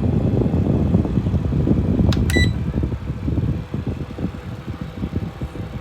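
Rechargeable battery camping fan blowing, its air buffeting the microphone as a loud, gusty low rumble. A little over two seconds in there is a click and a short electronic beep, and after it the rumble gradually eases.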